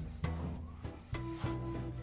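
Background music: a melody of distinct notes, each starting sharply and held briefly, over a low bass line.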